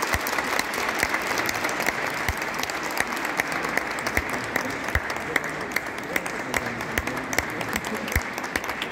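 Small audience applauding in an ice rink, single claps standing out from the rest; the applause slowly dies down.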